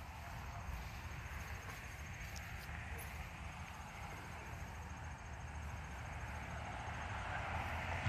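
Steady rumble of road traffic, growing louder near the end as a car approaches, with a faint high-pitched rapid pulsing through most of it.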